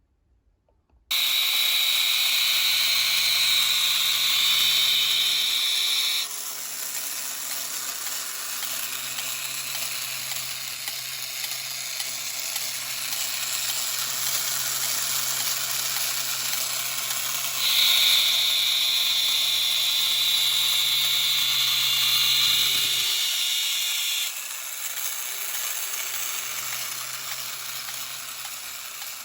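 Battery-operated tin toy running: its small electric motor and gears whirring steadily after starting suddenly, with a louder high whine for about five seconds near the start and again about two-thirds of the way through.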